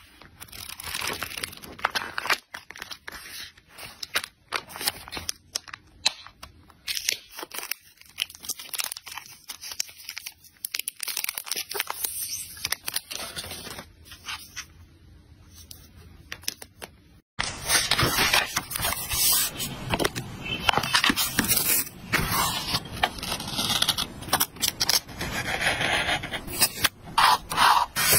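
Close-up paper and plastic handling: grid pages of a loose-leaf notebook being flipped, and packaged sticker sets and a plastic ruler handled. About two-thirds through it turns abruptly louder into a dense run of scraping, rubbing and peeling as stickers are laid onto a journal page with tweezers.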